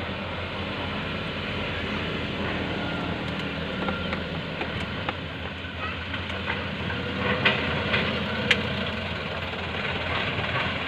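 Diesel engine of heavy earthmoving equipment running steadily, with a few sharp knocks near the end.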